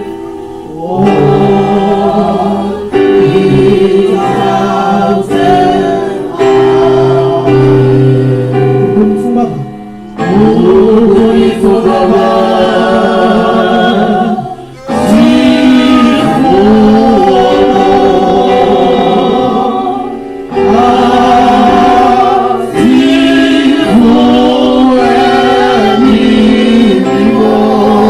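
Church choir and congregation singing a gospel hymn in long, held phrases with short breaks between them.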